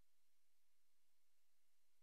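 Near silence: faint steady hiss of the recording's noise floor.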